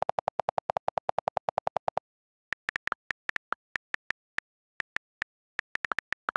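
iPad on-screen keyboard click sounds. First comes a fast, even run of lower-pitched delete-key clicks, about ten a second, as backspace is held to erase the text; it stops about two seconds in. After a short gap come higher, irregularly spaced letter-key clicks of typing.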